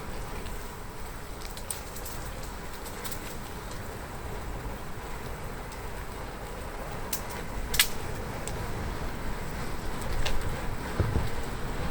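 Steady rush of wind and tyres on the road from a moving bicycle, with scattered sharp clicks and ticks, the loudest about eight seconds in, and a few low bumps near the end.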